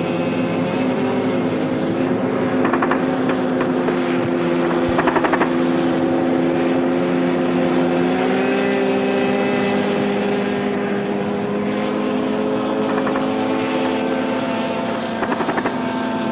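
Pindair Skima 4 inflatable hovercraft running under way: a steady engine and propeller drone whose pitch dips slightly and then rises a little as the engine speed changes. A few short bursts of rapid clicking cut in over it.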